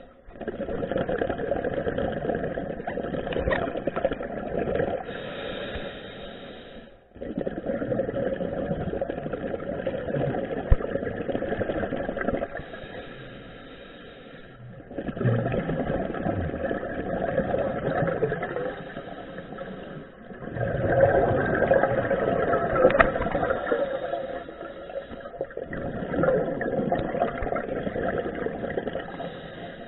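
Scuba regulator breathing, recorded underwater: about five long bubbling exhalations, each several seconds long, with short quieter gaps between for the inhalations.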